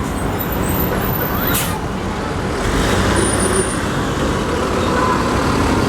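Heavy road traffic: buses passing with a steady engine and tyre rumble, and a short hiss about a second and a half in.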